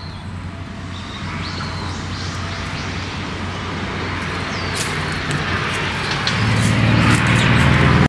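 A car approaching, its noise growing steadily louder and loudest near the end, with a few short bird chirps over it.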